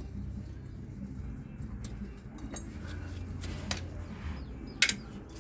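Hand tools and loose bolts clinking against metal, several separate clinks with the sharpest near the end, over a low steady rumble.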